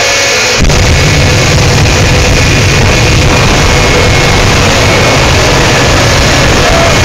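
Jet engine of a jet-powered semi truck running at high power during a flame display, a loud rushing blast with a steady whine on top. Just over half a second in, a deep rumble comes in suddenly as the flames burst from the exhaust, and it holds steady from then on.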